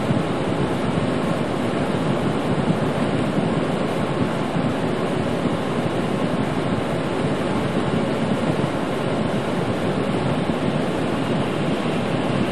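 Steady rushing noise inside a moving truck's cab: the heater fan blowing on the windshield to keep it from fogging, together with tyre and road noise on a wet, snowy highway.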